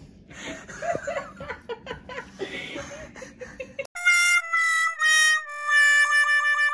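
A dog snuffling and making small whimpers, with rustling, as it noses at a person lying in its bed. About four seconds in this cuts off and an edited-in musical sound effect takes over: a few held notes stepping down in pitch, the last one wavering.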